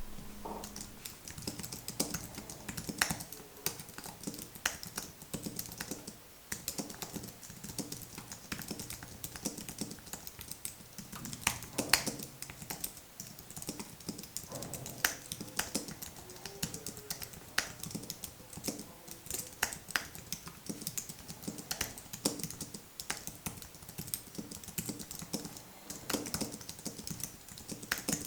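Typing on an Apple Magic Keyboard A2450, a low-profile scissor-switch keyboard: a steady stream of quick, light key clicks with an occasional louder stroke.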